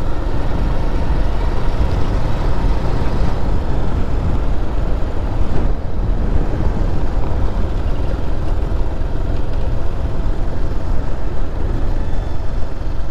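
Motorcycle ridden along an unpaved dirt road: its engine running steadily under a constant rush of wind on the microphone and tyre noise from the dirt surface.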